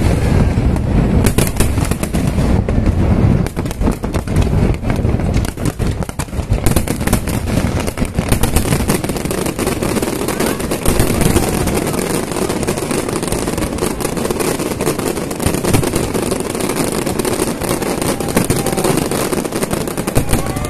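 Fireworks display: a rapid, continuous barrage of bangs and crackling from many shells and effects bursting at once. Deep booms dominate the first few seconds, and from about seven seconds in a denser, higher crackle takes over.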